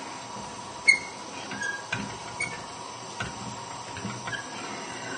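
Steady hiss from a lidded pan simmering on a gas hob, with a few light clicks and knocks, the sharpest about a second in.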